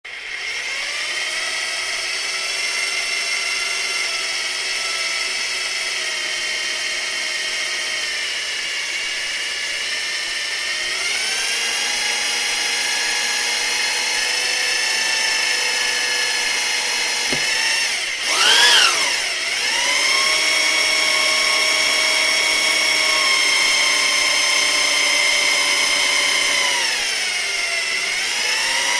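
Electric drill motor running continuously with a steady whine. Its pitch steps up about a third of the way in, swoops down and quickly back up just past the middle, and dips briefly near the end before settling again, as the speed changes.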